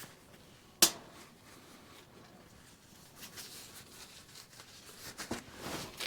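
Hands working a sheet-metal stovepipe to line up a screw hole: one sharp knock a little under a second in, then light taps and scrapes that build toward another sharp knock at the end.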